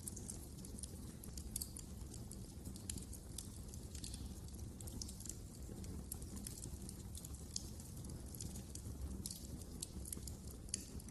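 Wood fire crackling, with frequent small irregular snaps and pops over a low, steady rumble.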